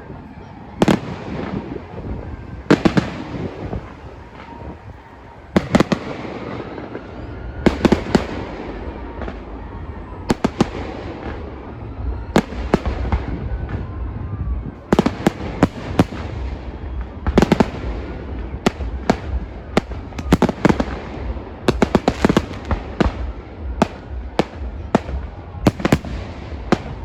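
Fireworks going off: a long run of sharp bangs from bursting fireworks, some single and some in quick clusters, over a steady low rumble. The bangs come more often from about halfway through.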